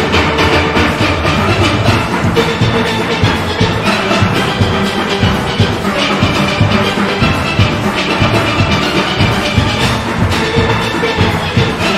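Steel orchestra playing: many steelpans sounding together over a steady, even beat of drums and percussion.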